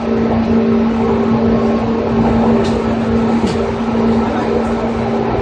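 Running sound inside a JR 205 series electric train with external-fan traction motors: a steady rumble of wheels on rail with a steady hum from the motors, as the train runs at an even speed. Two faint clicks come near the middle.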